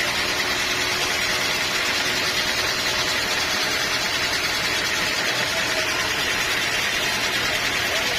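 Bandsaw sawmill running steadily: a constant machine drone with a high hiss and no breaks or changes.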